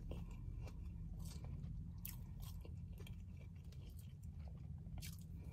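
Close-mic chewing of a crunchy hard taco shell: irregular crisp crunches and small mouth clicks over a low steady hum.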